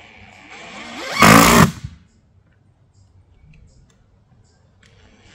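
Cordless drill driving a 1 5/8-inch screw through a half-inch plywood gusset into 2x6 truss lumber: the motor whines up in pitch about half a second in, runs loud for about half a second, and stops about two seconds in.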